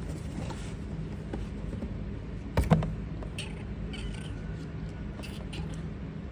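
Faint handling noises from a gloved hand holding kittens in a cardboard box, with one sharp knock about two and a half seconds in, over a steady low hum.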